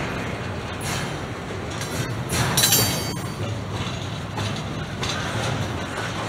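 Double-stack container train's well cars rolling past, steel wheels running on the rails, with a brief high squeal about two and a half seconds in.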